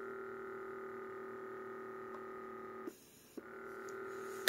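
The small air pump of a Lunix LX3 compression hand massager running with a steady hum. About three seconds in it stops for half a second, with a click as it stops and again as it restarts.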